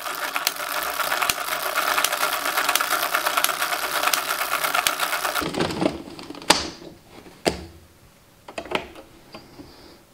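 Addi Express knitting machine being hand-cranked: its plastic needles clatter in a fast, dense run of clicks as rows are knitted, stopping about five and a half seconds in. A few single knocks follow.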